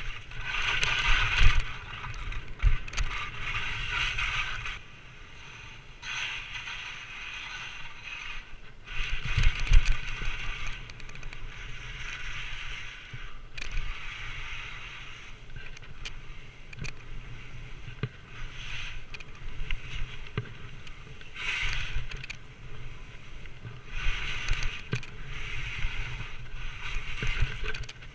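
Skis scraping and hissing over snow in a repeating rhythm, swelling every two to three seconds, with low wind rumble on the microphone and an occasional knock.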